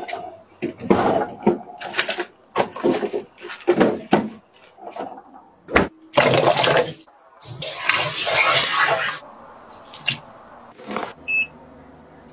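Plastic organiser bins and containers knocking and rustling as they are handled, then water running and splashing into a plastic strainer basin in a steel sink. A short high beep sounds near the end.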